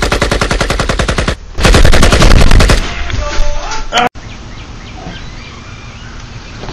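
Rapid automatic gunfire sound effect in two bursts with a short break just under a second and a half in, the second burst louder.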